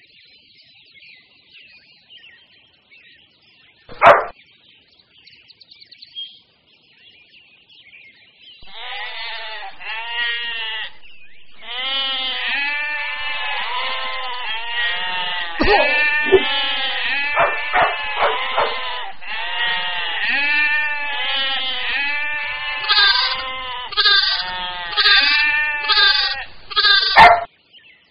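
A flock of sheep bleating, many overlapping calls that begin about a third of the way in and grow louder toward the end. One short, loud, sharp sound comes about four seconds in and another just before the end.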